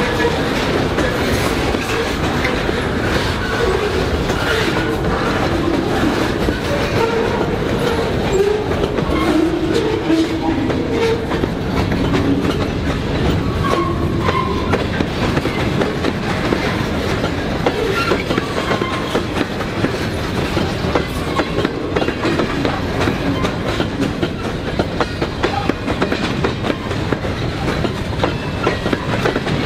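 Freight cars rolling past close by: a steady rumble of steel wheels on rail, with the clickety-clack of wheels clicking over rail joints.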